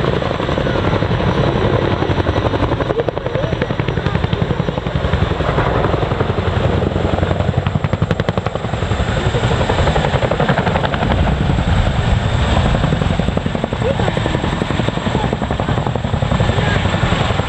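Boeing CH-47 Chinook tandem-rotor helicopter flying low: a loud, steady, rapid blade chop from its two rotors, with a steady high whine above it.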